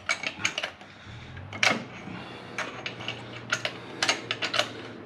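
Quick, irregular clicks and clacks of hard engine parts being handled and fitted by hand, over a low steady hum.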